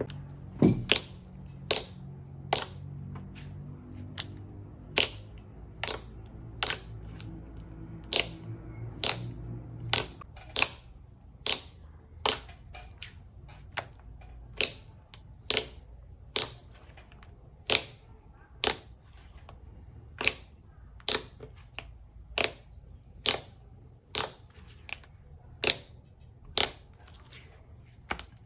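Slime being squeezed and poked by hand, giving sharp crisp clicking pops about once a second, sometimes two in quick succession.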